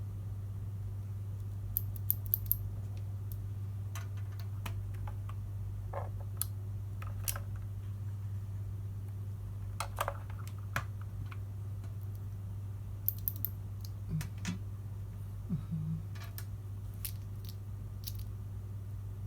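Scattered sharp plastic clicks, a few in quick runs of three or four, from a mechanical keyboard and its removed clicky Outemu Blue switches being handled, over a steady low hum.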